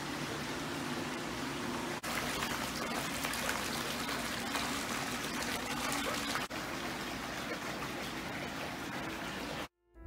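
Hot-spring water flowing steadily into an outdoor rock-lined bath, a constant rush and trickle of water. It breaks off briefly twice and cuts off abruptly near the end.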